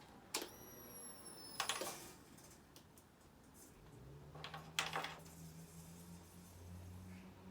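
A few faint sharp clicks, then a quiet steady low hum from about four seconds in that stops near the end; the motorcycle engine is not running.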